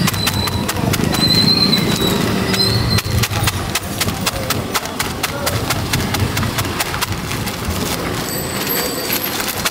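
Crisp fried snacks crushed by hand inside a plastic bag: a dense, irregular run of sharp crackles, crunches and plastic crinkling.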